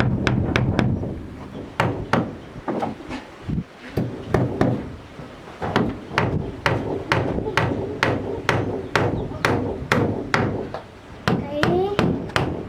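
Rapid, uneven series of sharp blows on wood, about two to three a second.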